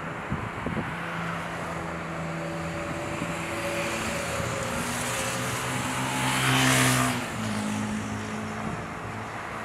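A motor vehicle passes close by. Its engine note grows louder and is loudest about seven seconds in, then drops in pitch as it moves away, over a steady background hiss.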